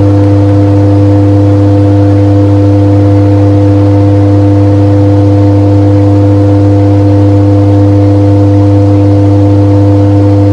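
A loud, steady hum that holds one unchanging pitch with a few evenly spaced overtones.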